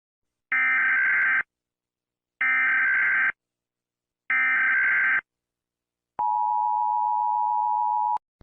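Emergency Alert System opening: three short bursts of SAME header data tones, about a second each, followed by the steady two-tone attention signal held for about two seconds.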